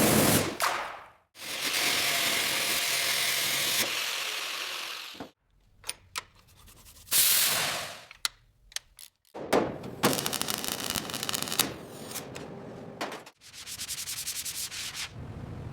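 Abrasive sanding and rubbing on rusted metal, in short clips cut hard one after another, each starting and stopping abruptly, with a few sharp clicks between them.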